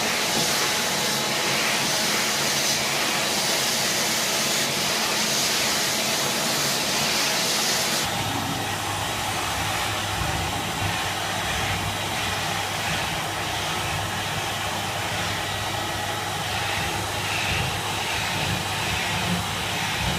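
Zelmer Neptune AquaFilter water-filtration vacuum cleaner running steadily with a strong hiss of air. About eight seconds in the sound changes: the high hiss drops and a lower rumble comes up, then it runs on steadily.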